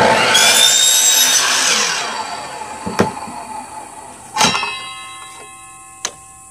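Electric compound miter saw starting up and cutting through a PVC pipe in one quick stroke, its motor then spinning down over a couple of seconds. A few sharp knocks follow as the pipe and the cut piece are handled.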